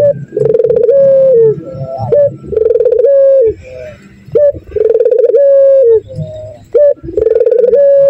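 A puter dove (domestic collared dove) sings its 'kiw kiw cukurukuk' song: four long, level coos, each stepping down at the end, about one every two seconds, with short rising notes between them.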